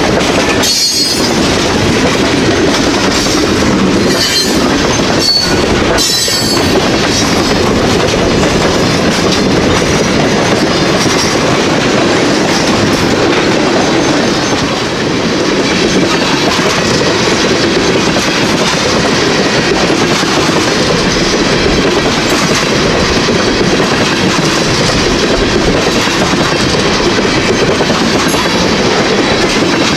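Freight train cars (open-top hoppers, then tank cars) rolling past on steel wheels, a loud, steady rumble of wheels on rail. A few sharp clanks and a brief high squeal come in the first several seconds.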